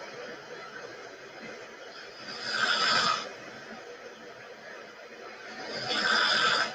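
A person snoring: two snores about three and a half seconds apart, each building for about a second and then stopping abruptly.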